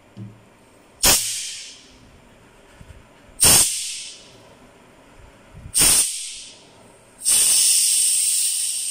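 Compressed air blasting out of a homemade PCP air-gun valve on a pumped-up air tank, as the spring-loaded valve is knocked open: three short blasts about two and a half seconds apart, each starting sharply and trailing off within a second, then a longer hiss of escaping air from about seven seconds in that slowly fades.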